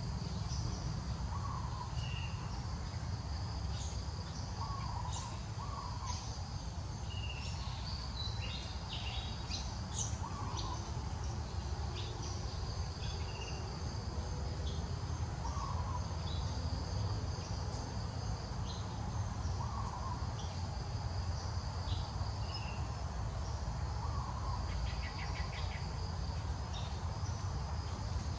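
Forest ambience: a steady, high insect drone with a bird giving short, repeated calls every few seconds, over a steady low rumble.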